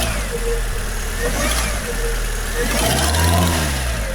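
Fiat 500 engine idling with a recurring chirp that rises and falls about every second and a half, a noise the owner puts down to the timing belt.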